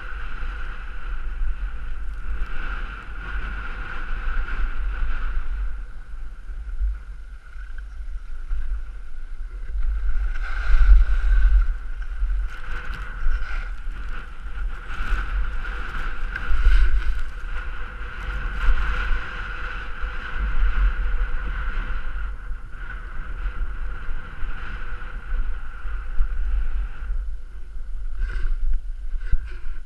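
Skis sliding and scraping over packed snow at speed, with wind rumbling on the camera's microphone. The noise swells louder at times, notably about a third of the way in and again past the middle.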